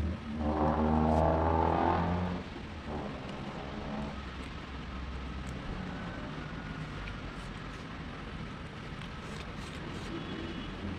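A motor vehicle's engine, loud and steady for the first two seconds or so, then fading into a steady low background hum.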